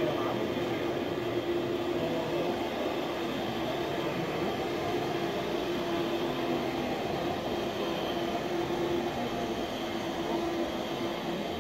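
Steady mechanical drone with a constant humming tone running through it.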